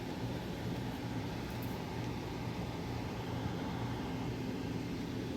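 Steady low machine hum with hiss, from a running motor or fan.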